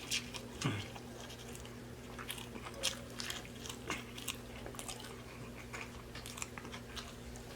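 Close-miked chewing and mouth smacking of a person eating a fast-food sandwich, a string of small irregular wet clicks, over a steady low hum.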